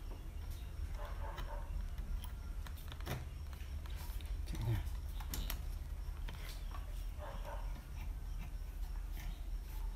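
Scattered light clicks and taps from hands handling a drill bit and wooden parts, over a low steady hum.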